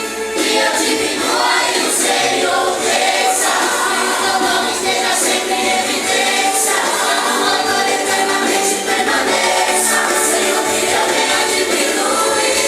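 Christian worship music: a group of voices singing with band accompaniment, steady and loud throughout.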